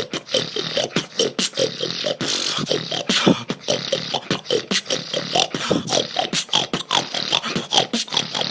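Snoring performed as vocal beatboxing: a fast, steady run of sharp mouth-made percussive strokes mixed with breathy, throaty snore sounds.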